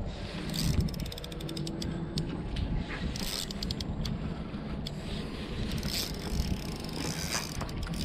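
Spinning reel being wound in on a hooked fish, its mechanism clicking in quick runs over a low background rumble.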